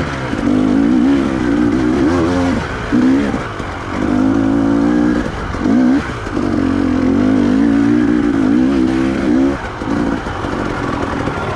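Trail motorcycle's engine under throttle, its note rising and falling as the throttle is opened and eased off over and over, with several short dips where it backs off.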